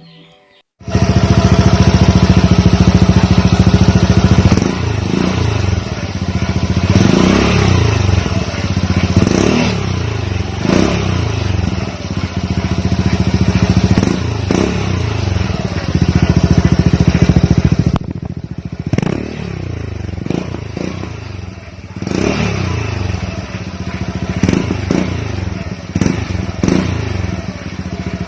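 Suzuki Burgman Street 125 scooter's single-cylinder four-stroke engine running through a Vmax Power Pipe aftermarket exhaust, idling and being revved again and again in short blips that rise and fall. It settles back to a quieter idle for a few seconds about two-thirds of the way through. The exhaust note is mild rather than loud, with a full bass.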